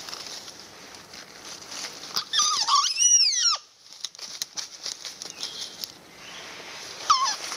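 Sika deer fawn caught by the leg in a snare, giving a long, high, wavering distress bleat about two seconds in and starting another near the end. Dry leaves rustle and crackle as it struggles.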